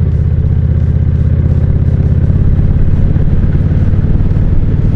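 Kawasaki Vulcan cruiser motorcycle's engine pulling in third gear through a sharp curve, heard from the rider's seat. It gives a steady, low, rapidly pulsing note that grows slightly louder past the middle.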